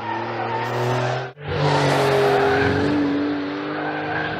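Porsche 911 GTS (992) turbocharged three-litre flat-six running through its sports exhaust under load, holding a fairly steady pitch. The sound cuts out sharply for a split second about a second and a half in, then comes back louder.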